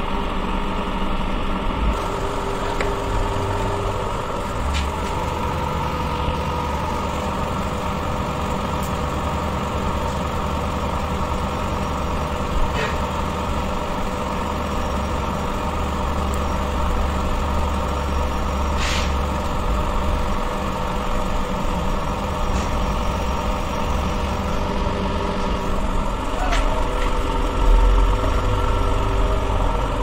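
An engine running steadily in the background, a constant hum with a few fixed pitches, with a few light sharp clicks over it, the loudest about nineteen seconds in.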